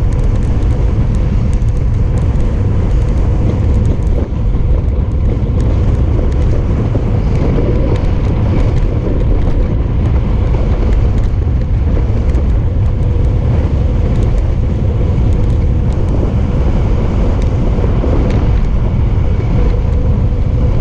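Wind buffeting a GoPro's microphone on a road bike descending at speed, a loud steady rumble with the hiss of the tyres on the asphalt beneath it.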